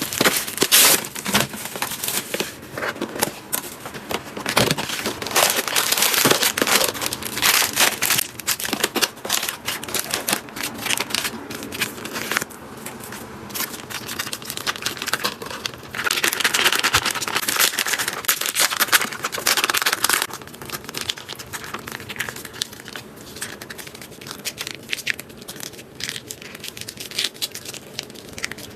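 Plastic packaging crinkling and tearing as a self-heating noodle kit is opened and unpacked, in a dense run of irregular crackles with a thicker stretch of rustling about two-thirds of the way through.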